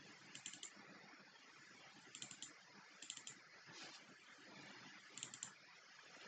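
Faint computer keyboard typing in four short bursts of a few keystrokes each, over a steady low hiss.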